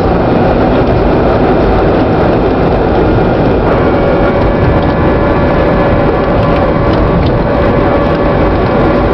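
Boeing 747-400 on its landing roll heard from inside the cabin: a loud, steady roar of engines, airflow and runway rumble, with a steady whine joining in about four seconds in.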